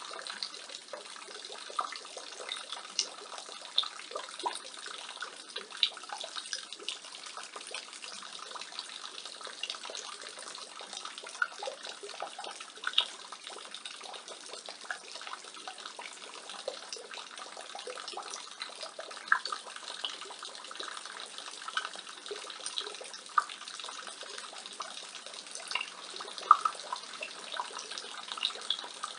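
Rain water falling from a roof gutter and splashing, a steady patter with many irregular louder drips and splashes.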